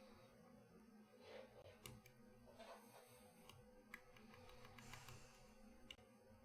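About half a dozen faint, scattered clicks of a lock pick and tensioner working the pins of a Tubar vending-machine lock.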